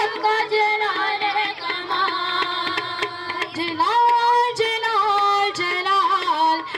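Women singing a Hindi-Urdu Christian worship song into microphones, over a steady percussion beat.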